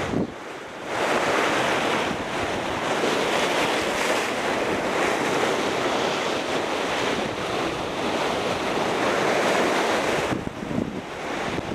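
Sea surf breaking and washing over shoreline rocks, with wind buffeting the microphone. It swells about a second in and eases near the end.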